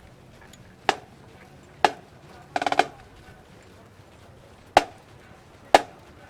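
Marching snare drum struck with sticks: four single sharp strokes spaced about a second apart, and a short quick roll about two and a half seconds in.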